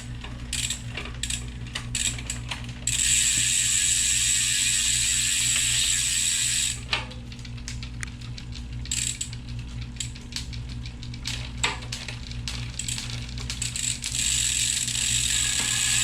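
Bicycle freewheel ratcheting as the rear wheel spins and coasts: rapid ticking that runs together into a steady buzz for a few seconds in the middle and again near the end.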